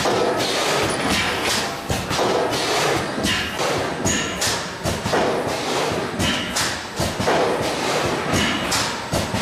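Gabler Varius thermoforming line handling and stacking plastic lids, with a quick run of mechanical thumps and clatter, about two or three knocks a second, and a few brief high hisses.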